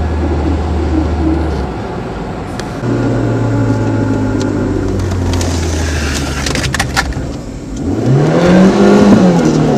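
Citroën ZX engine running with the clutch disengaged, its idle speed shifting a couple of times, then revved up once and let fall back about eight seconds in.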